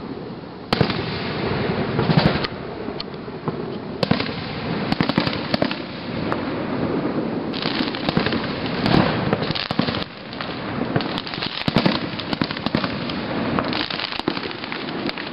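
Aerial fireworks shells bursting in a continuous run of sharp bangs and crackling, with louder bangs about a second in, at four seconds and near eight seconds.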